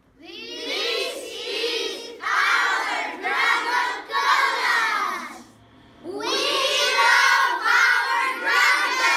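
A class of children calling out a message together in unison, many young voices at once, in two long phrases with a short break about halfway through.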